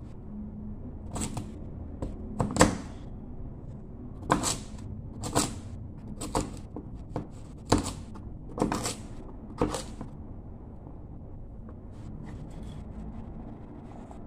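Large kitchen knife chopping through firm yellow flesh and knocking on a wooden chopping board, about ten separate chops between one and ten seconds in, then stopping.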